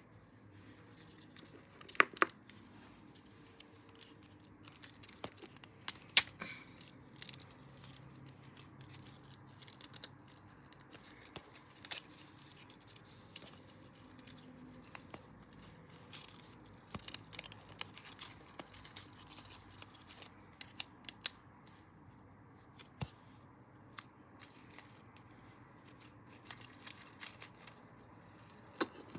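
Hands taking apart a small KiwiCo speaker kit: scattered sharp plastic clicks and snaps, the loudest about two and six seconds in, with stretches of scratchy rustling and scraping as parts are handled and pried apart.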